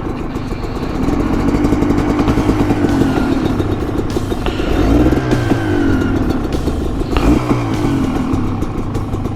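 Honda CRM250R's two-stroke single-cylinder engine running, its revs rising and falling a few times, with a thin high squeak (a 'kiri-kiri' noise) that the owner calls an abnormal engine noise that won't stop.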